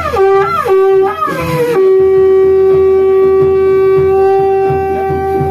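Conch shell (shankh) blown for an aarti: a few short falling notes, then one long steady note held for about three and a half seconds that cuts off near the end.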